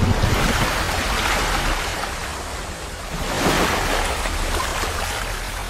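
Rushing, crashing water sound effect with a low rumble underneath, surging at the start and again about three and a half seconds in.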